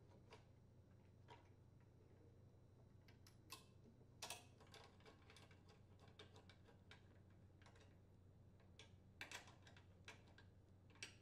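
Near silence with faint, scattered clicks and ticks of a nut driver and small metal mounting bolts as a carburetor is bolted to a small engine. A few clicks are a little louder, around the middle and near the end.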